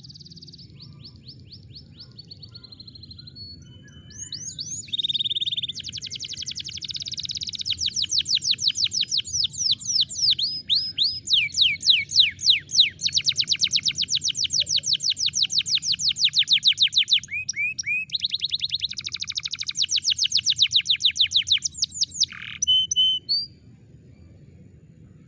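Canary singing long runs of rapid trills, each a fast string of repeated notes sweeping up and down, quiet at first, then loud, and stopping shortly before the end, over a steady low hum.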